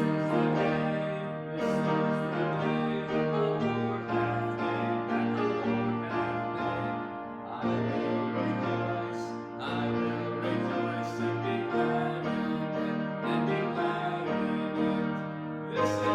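Piano playing a worship song in slow, held chords, each struck anew every couple of seconds.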